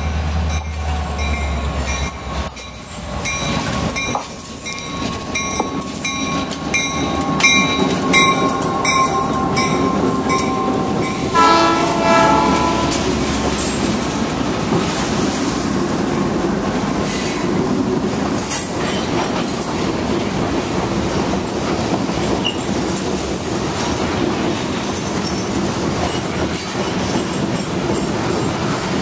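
Norfolk Southern freight train passing close by. The locomotives rumble past with a bell ringing over the first ten seconds, and the horn sounds for a few seconds about eleven seconds in. After that comes the steady rolling rumble and wheel noise of covered hopper cars going by.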